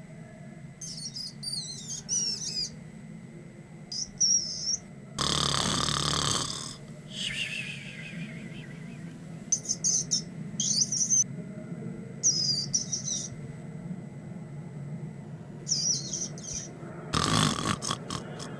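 A rat squeaking in short bouts of high, gliding chirps, over a steady low rumble. Two louder noisy bursts break in, one about five seconds in and one near the end.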